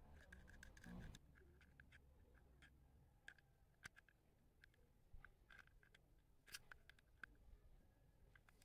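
Faint clicks and metallic ticks of needle-nose pliers gripping and turning a nut on a threaded F-type coax connector fitted through a plastic case, with a brief handling rustle about a second in.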